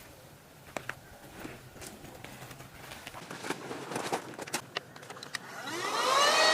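Faint clicks and knocks of gear being handled, then near the end a small electric motor starts up, its whine rising in pitch and loudness.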